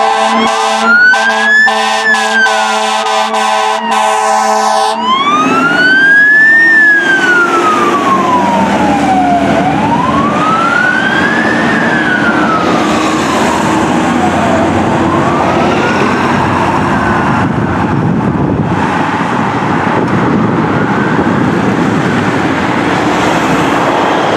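Fire engine siren on a slow wail, gliding up and down about once every five seconds. Music plays over it for the first few seconds. The siren fades out about two-thirds of the way through, leaving steady road traffic noise.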